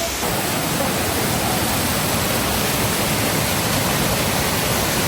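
Waterfall rushing with a steady, even roar of falling water, stepping up a little just after it begins.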